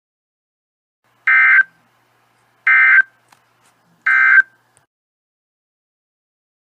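Three short bursts of Emergency Alert System digital data tones, about a second and a half apart: the end-of-message code that closes an emergency alert broadcast.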